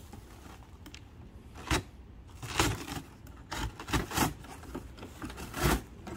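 Utility knife slicing down the corners of a large corrugated cardboard box, with the cardboard side panels bent and folded down. About half a dozen short scraping bursts from about a second and a half in.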